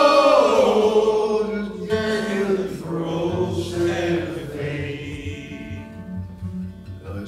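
Sing-along chorus: a long held 'yo-ho' and then the repeated line of the verse, sung by a man with the audience joining in, over strummed acoustic guitar.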